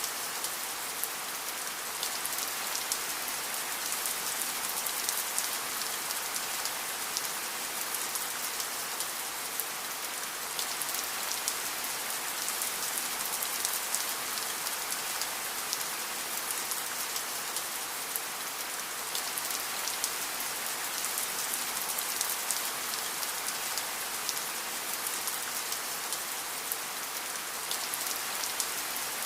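Steady rain falling, a dense even hiss with many individual drops pattering close by.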